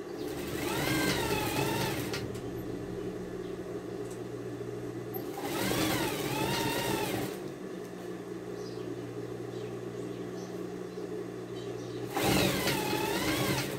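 Industrial straight-stitch sewing machine stitching in three short runs of about two seconds each, its whine rising and falling with speed, with a steady motor hum in between.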